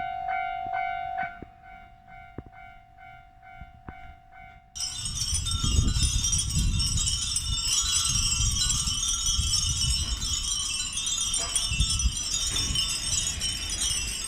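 A sustained ringing chime tone with a few light ticks for the first few seconds. About five seconds in it cuts suddenly to a dense mass of wind chimes jingling, with a low rumble of wind underneath.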